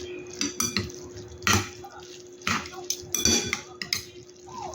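Kitchen dishes and utensils clattering: a handful of separate clinks and knocks, some ringing briefly, over a steady hum.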